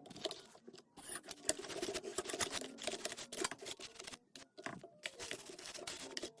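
Close handling noises: irregular scratching and rubbing with many quick clicks, with a short pause about a second in and another near two-thirds of the way through.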